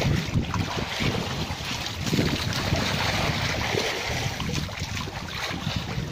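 Wind buffeting the microphone, with water splashing and rushing along the hull of a small wooden outrigger boat. The sound is an irregular, gusty rumble over a steady hiss of water.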